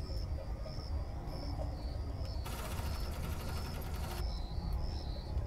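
Crickets chirping in short high chirps about twice a second, with a buzzy trill lasting nearly two seconds around the middle, over a steady low hum.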